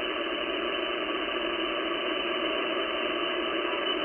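Icom IC-756PRO transceiver receiving steady static hiss on the 10-metre band as its dial is tuned down from 28.350 MHz. The hiss sounds dull, cut off above the speech range, and no station comes through: the band is quiet.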